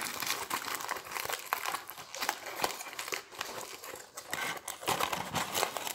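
Aluminium foil being crumpled, folded and pressed into shape by hand: a continuous irregular crinkling and crackling.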